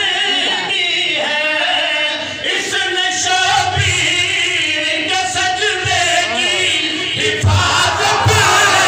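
Several men chanting a devotional qasida together into microphones, a lead voice with others joining, amplified through a PA. Near the end the audience breaks into loud shouting over the chant.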